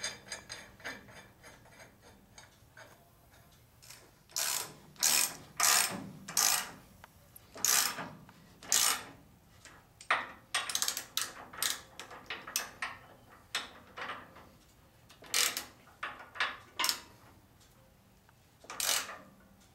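Hand ratchet wrench clicking as the U-bolt nuts that hold the rear axle to the trailing arms are run down snug. A fast run of even clicks at first, then irregular bursts of clicks and metal clinks.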